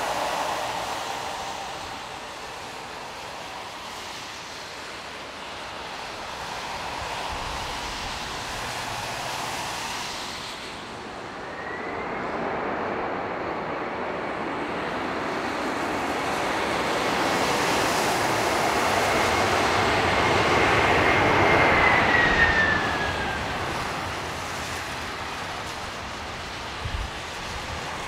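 Boeing 767-300F freighter's General Electric CF6-80C2 turbofans during the landing roll on a wet runway, a steady rushing roar. About eleven seconds in, a high engine whine rises and holds as reverse thrust spools up. After about twenty-two seconds it winds down as the reversers come out and the roar falls away.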